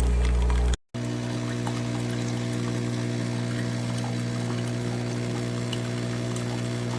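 Cuisinart SS-10P1 single-serve coffee maker brewing: its pump hums steadily while coffee pours into the cup. The sound cuts out briefly just under a second in, then resumes with a hum at a different pitch.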